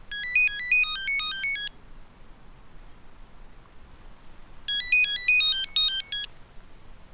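Nokia mobile phone ringing: a short electronic melody of quick beeping notes, played twice, with a pause of about three seconds between the two phrases.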